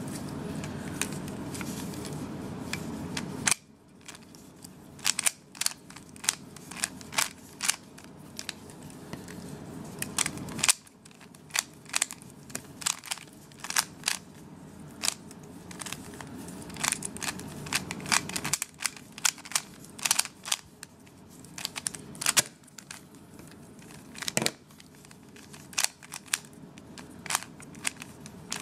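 A plastic Rubik's cube's layers being turned quickly by hand during a solve: rapid, irregular clicking and clacking. A low background hum stops and starts a few times.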